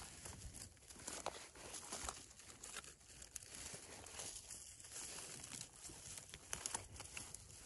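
Faint rustling and crackling of dry leaves, moss and twigs as gloved hands pick mushrooms from the forest floor, with a few small snaps and clicks.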